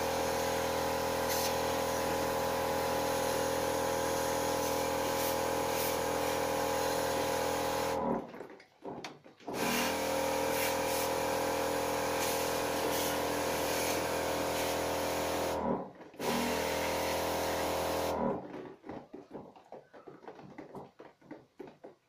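Rechargeable electric spray pump running with a steady hum and the hiss of water spraying from its wand onto an air-conditioner's indoor coil during a cleaning wash. It cuts out about eight seconds in, starts again a second and a half later, pauses briefly after another six seconds, then stops, leaving only faint handling knocks.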